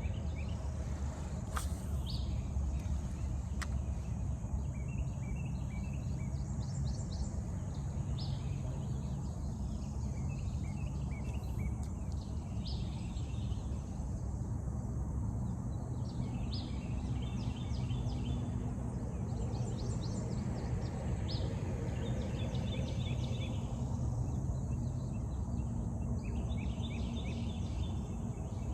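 Birds singing, short calls of several quick notes repeated every few seconds, over a steady low rumble.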